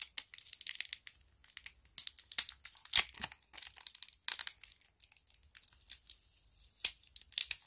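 Sticky tape being peeled and pulled off two small plastic vials by hand: irregular crackling and rustling, with a few sharper rips.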